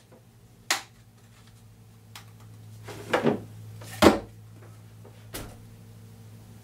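Handling noise as a Bosch GET 75-150 random orbital sander is lifted out of the foam insert of its plastic case and set down on the bench: a few separate knocks and bumps of hard plastic, the loudest about four seconds in.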